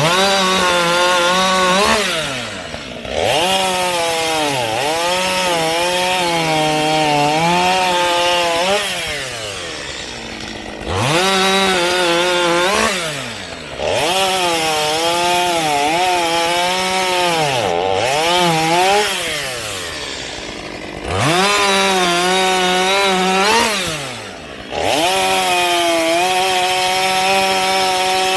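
Two-stroke chainsaw revved up and cutting wood, its pitch sagging under load, then falling back to idle and revving up again about six times.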